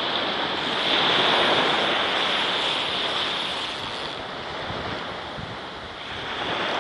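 Small waves breaking and washing up a sandy beach, with some wind on the microphone. The wash swells about a second in and slowly fades off.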